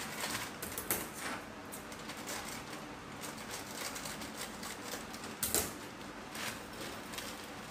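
Small plastic instant-noodle masala sachets being handled and snipped open with scissors: crinkling and a few sharp clicks, the loudest a little after five seconds in.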